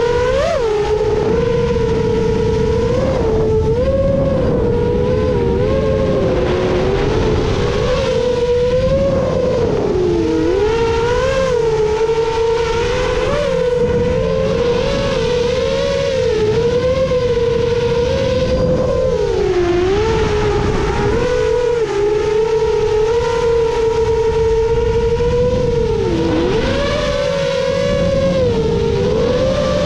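A 7-inch FPV quadcopter's Emax Eco II 2806.5 motors and HQ 7x3.5x3 three-blade propellers whining in flight on a 6S pack. The pitch keeps rising and falling with the throttle, with a few sharp drops where the throttle is chopped.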